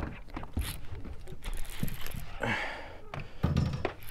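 Fishing reel being cranked during a fight with a hooked largemouth bass, its gears giving a run of quick clicks, with a louder low thump near the end.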